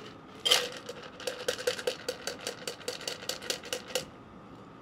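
Stainless-steel cocktail shaker and fine-mesh strainer knocking together in quick metallic taps, shaking the last of the strained drink through. A sharper knock comes first, then about five ringing taps a second for roughly three seconds.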